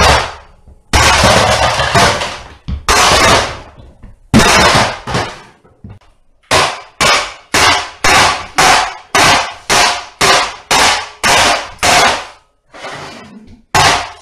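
Hammer blows smashing a plastic toy: a sharp hit, then a few longer crashes in the first five seconds, then a steady run of hits about two a second.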